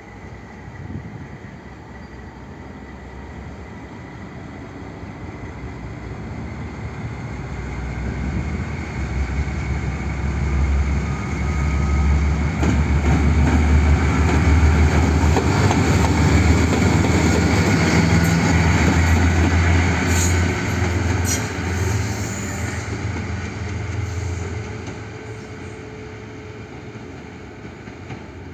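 PKP Cargo 311D diesel locomotive passing close by on its own, its diesel engine rumbling deeply, growing louder as it comes past and then fading as it pulls away. A couple of sharp clicks sound about two-thirds of the way through.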